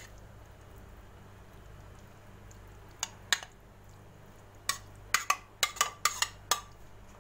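Metal spoon clinking and scraping against a serving bowl as cooked minced meat is spooned out into a baking tray: two clicks about three seconds in, then a quick run of clinks near the end.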